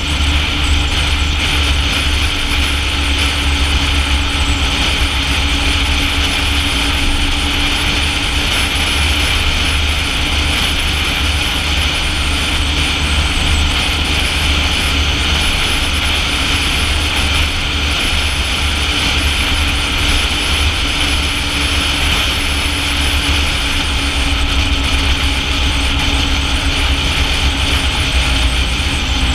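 Wind buffeting the microphone on a moving BMW motorcycle, with the bike's engine running at a steady pitch underneath.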